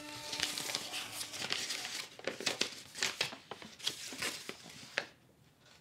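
Irregular crinkling and crackling, a rapid scatter of small sharp clicks, that dies away about five seconds in.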